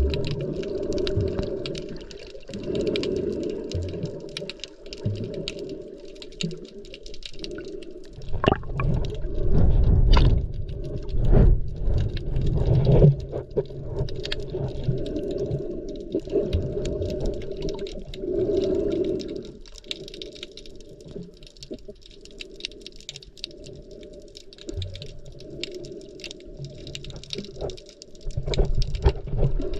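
Muffled underwater sound as heard through a camera's waterproof housing while snorkelling: surging, sloshing water with a constant fine crackle of tiny clicks.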